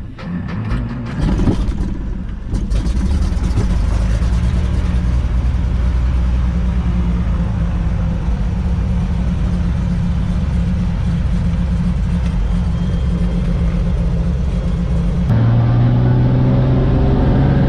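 Cessna 180's six-cylinder piston engine running, uneven for the first couple of seconds and then steady. About fifteen seconds in, the sound changes abruptly to a stronger, steadier drone.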